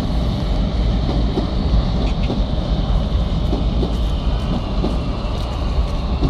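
Oslo Metro MX3000 train running past on the rails: a steady rumble of wheels on track.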